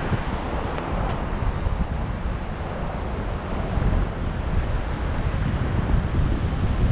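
Wind buffeting the microphone over waves washing up the shore.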